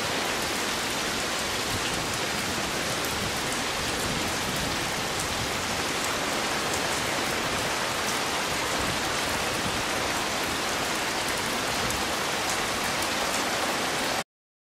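Heavy rain falling steadily, a dense even hiss with scattered drop ticks, cutting off suddenly near the end.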